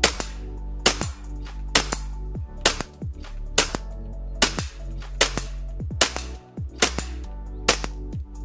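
Tokyo Marui Glock 22 gas blowback airsoft pistol firing semi-automatic shots, each a sharp crack of the gas release and the slide cycling. There are about ten shots, a little more than one a second.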